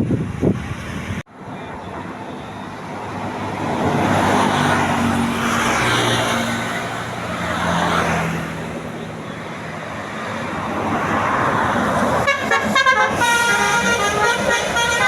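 A tour bus passing close by, with loud engine and road noise that swells and fades. Near the end its multi-tone 'telolet' musical horn plays a rapid warbling tune.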